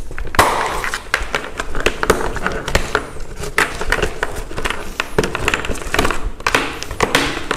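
Irregular plastic clicks and knocks with fabric rustling as the harness straps, buckles and padded cover of a Safety 1st Mellow high chair are worked by hand.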